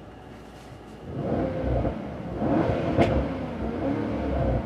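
Mercedes-AMG E63 S's twin-turbo V8 running, heard from inside the cabin. The engine note gets louder about a second in, as the AMG performance exhaust is switched on. A short sharp click comes about three seconds in.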